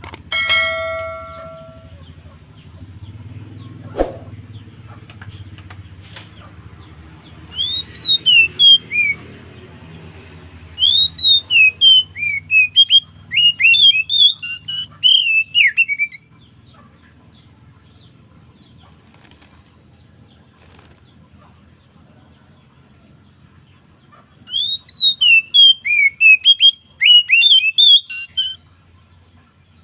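Oriental magpie-robin (kacer) singing loud, clear phrases of fast slurred whistles in three bursts, the longest in the middle, in the open 'ngeplong' style. A brief pitched ringing tone sounds at the very start, over a low background hum.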